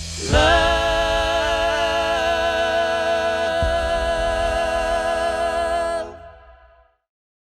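Music in which a singing voice holds one long note with a slight vibrato over the accompaniment, then fades out about six seconds in to silence.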